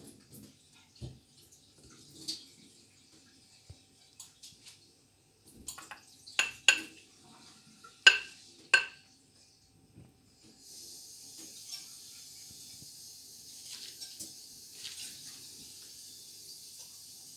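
A metal spoon clinking against a ceramic mug: several sharp ringing taps in the middle, the loudest two to three a second apart. A steady high hiss sets in about two-thirds of the way through and carries on.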